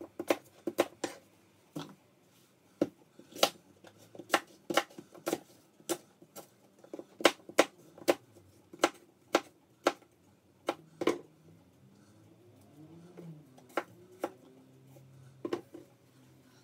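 Kitchen knife cutting apples on a cutting board: sharp, irregular knocks of the blade striking the board, several a second, thinning out to a few scattered knocks after about eleven seconds.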